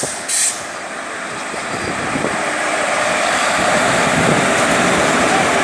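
Passenger train running through the station: two short hisses near the start, then the steady rumble of the moving train growing louder.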